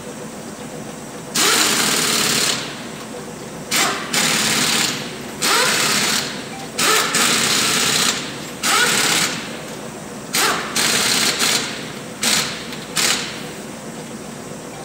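Pneumatic impact wrench at a wheel, run in about ten short bursts. The first few each last up to about a second, and the last few are only brief blips.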